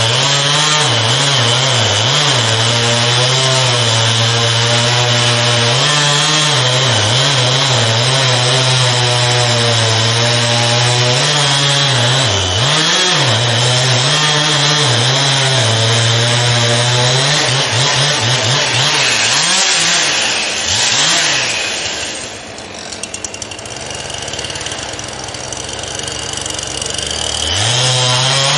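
Chainsaw cutting into a tree trunk during felling cuts (notch and back cut), its engine pitch repeatedly dipping and recovering under load. About three-quarters through it drops to a quieter idle for several seconds, then revs up again near the end.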